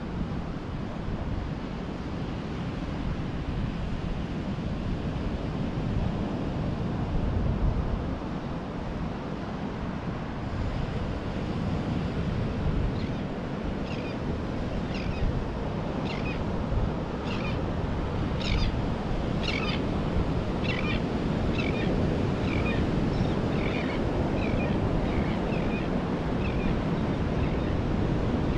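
Ocean surf washing onto a beach, with wind noise on the microphone. Through the second half, a series of short high-pitched calls comes about once a second over the surf.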